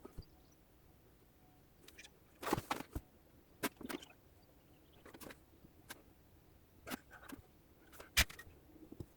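Scattered clicks, clinks and light knocks of small metal parts and tools being handled and set down, with the sharpest knocks about two and a half seconds in and near the end.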